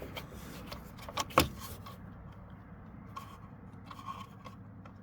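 Light metallic clicks and rattles of hands working on wiring and metal parts, with one sharper click about a second and a half in and only faint handling sounds after that.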